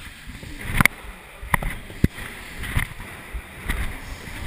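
Scooter wheels rolling fast over plywood skatepark ramps, with a handful of sharp clacks as the deck and wheels knock over the surface, the loudest about a second in.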